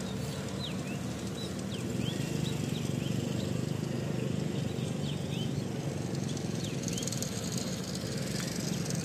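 Steady low rumble of distant vehicles, with many short bird chirps over it.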